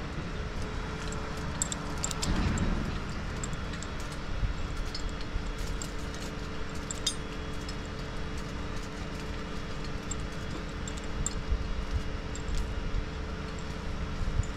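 Stick-boom crane's engine running steadily, with scattered light metallic clinks over it and a brief louder rumble about two seconds in.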